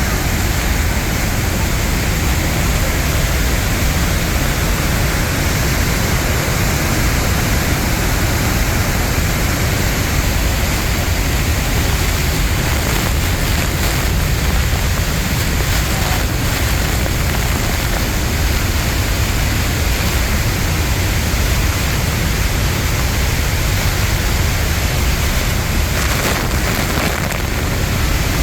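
Loud, steady rush of a large waterfall heard from right beside the falling water, a constant noise with a heavy low rumble and no breaks.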